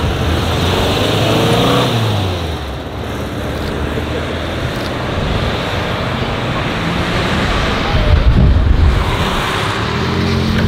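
Cars driving away, their engines revving up as they accelerate, with the loudest low exhaust burst about eight seconds in.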